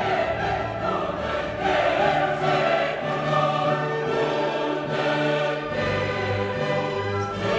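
Background music: choral music with voices holding long, slowly changing notes.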